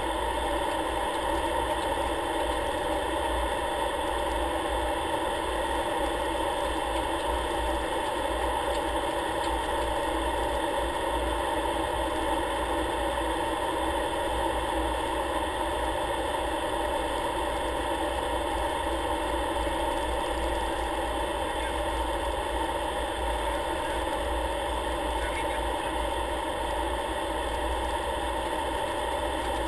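Aircraft engine drone heard inside the cockpit, steady and unchanging in pitch and level.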